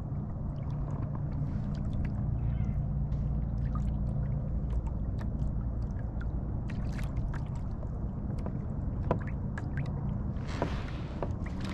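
A boat's motor running with a steady low hum, while water laps and ticks against the hull. There is a brief rushing hiss near the end.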